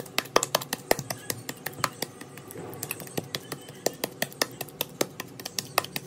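Wooden pestle pounding sticky steamed mugwort rice dough in a stainless steel bowl, with a fork knocking against the metal: an irregular run of sharp taps and clinks, several a second.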